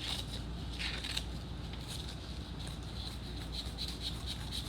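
Repeated short, scratchy strokes of a pencil tracing a line on paper along a board's straight edge, over a low steady hum.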